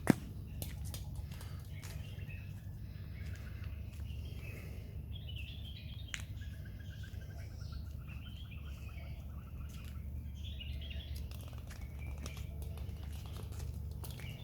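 Birds chirping over a steady low hum, with a fast trill a little after the middle. There is a single sharp knock just after the start, and scattered light taps.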